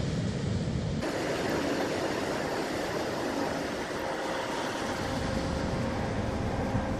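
Ocean surf breaking and washing up a beach, heard as a steady rush with wind buffeting the microphone. The sound changes abruptly about a second in, and a faint steady hum runs under the surf in the later part.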